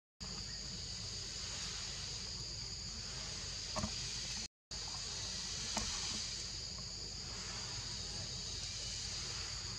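Steady chorus of forest insects buzzing in two high bands over a low rumble, with a couple of faint ticks. The sound cuts out completely for a moment twice, right at the start and about four and a half seconds in.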